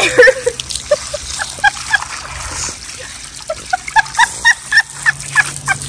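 A garden hose running water onto a partially frozen turkey in a plastic bag, splashing and trickling, while a woman laughs in a run of short high-pitched bursts that bunch up in the second half.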